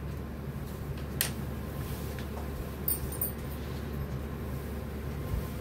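Silk sarees being handled, with a few faint rustles and clicks, one sharp click just after a second in and a short cluster about three seconds in, over a low steady room hum.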